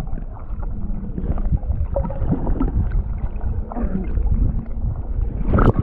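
Muffled underwater sound through a submerged camera: a dense low rumble of moving water with small bubbling gurgles. Near the end a loud splash as the camera breaks the surface.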